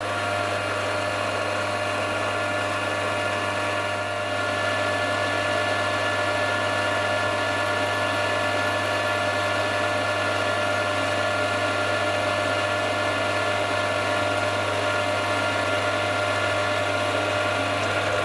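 Milling machine running steadily, its spindle driving a spot drill down through a metal plate: a constant low motor hum with a steady mechanical whine over it.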